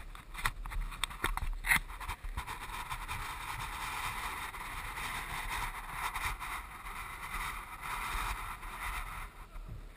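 An action camera's housing sliding and turning on a wooden floor: a few sharp knocks, then from about two seconds in a steady scraping, rubbing noise that fades out just before the end.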